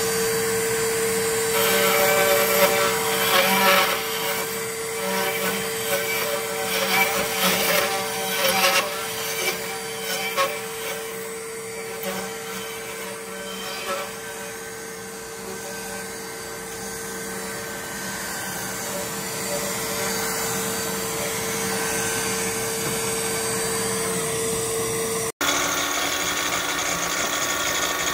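Router motor running at a steady high pitch while cutting a hardwood block in a router jig, with rough, uneven cutting noise over roughly the first ten seconds, then steadier. About 25 seconds in it breaks off suddenly and a different power-tool motor takes over.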